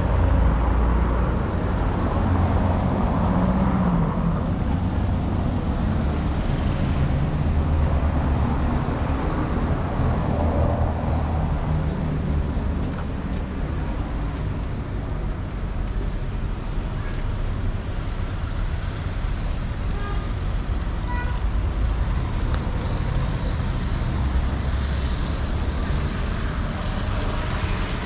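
Road traffic: cars driving past along a city street, a steady rumble of engines and tyres.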